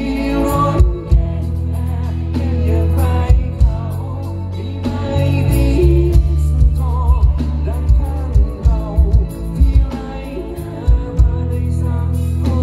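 Live band playing through a big concert PA: a man singing, with a wavering held pitch, over electric guitar, bass guitar and drums. Heavy bass underneath and frequent sharp drum beats.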